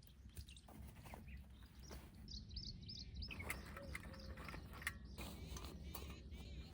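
Faint bird chirping: a quick run of short high notes about two seconds in, then scattered single chirps, with a few light clicks among them.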